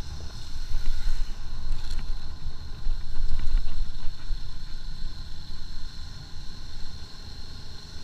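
Motorcycle riding along at speed, its engine running steadily beneath heavy wind buffeting on the bike-mounted camera's microphone. The buffeting swells about a second in and again around three to four seconds in.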